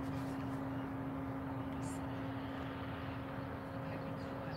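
Steady mechanical drone with one constant hum note, under a low rumble of wind on the phone's microphone.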